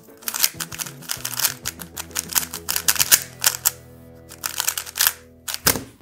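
Rapid clicking of a Qiyi M Pro 3x3 speed cube being turned during a timed solve, with a short lull about four seconds in. Near the end one sharper hit follows as the hands come down on the stackmat timer pads to stop the time.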